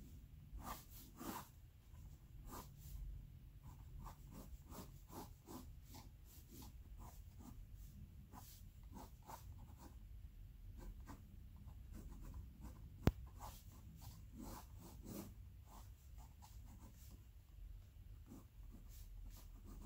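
Sakura Pigma Micron fine-tip ink pen scratching on watercolor sketchbook paper in quick, irregular short strokes as a sketch is drawn, over a low steady hum. A single sharp click about two-thirds of the way through is the loudest sound.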